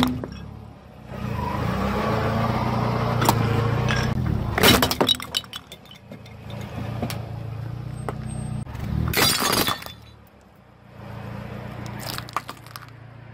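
Car tyre rolling over and crushing toys on asphalt, with the car's engine running low underneath. Sharp cracking and shattering of plastic and ceramic comes right at the start, about five seconds in, in a longer crunching burst near the middle, and in smaller cracks near the end.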